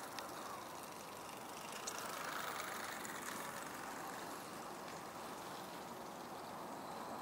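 Faint hiss of a distant vehicle passing, swelling about two seconds in and slowly fading.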